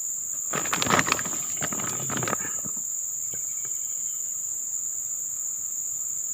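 A steady, high-pitched insect chorus of crickets shrilling. About half a second in comes a two-second burst of short scuffling noises, then only the insects remain.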